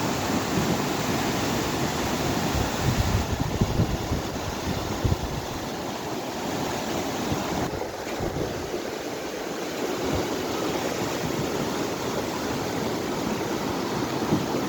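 Rushing water of a swollen mountain river in flood, a steady heavy roar. Low gusts, likely wind on the microphone, about three to five seconds in.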